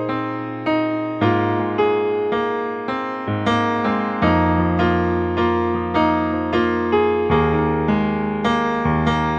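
Slow, melancholic piano music: notes struck a little more than once a second, each ringing and fading, over low bass notes that change every three seconds or so.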